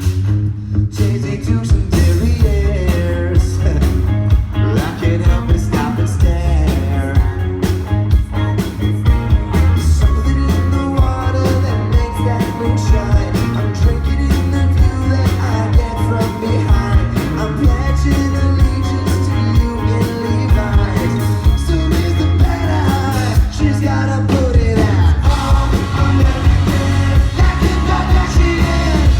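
Live band playing a pop-rock song over a heavy, steady bass beat, with a man singing lead.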